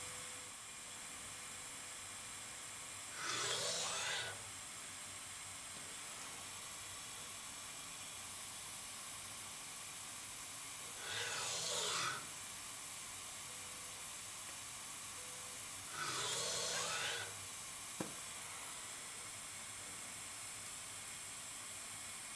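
Automated die bonder's steady hiss, broken three times by louder hissing bursts about a second long, with a single sharp click near the end.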